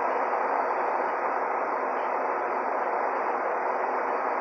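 A steady, even rushing noise that holds at one level throughout, like a running fan or airflow.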